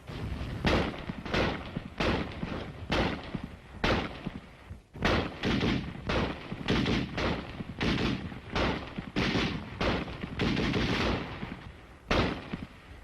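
Gunfire: a string of sharp shots, spaced out at first and then coming about two a second, each trailing off with a short echo.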